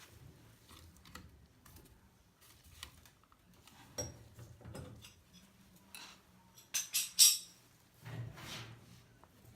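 Scattered metallic clinks and knocks of tools and metal parts being handled during dryer repair work, with a quick run of sharp, bright clatters about seven seconds in.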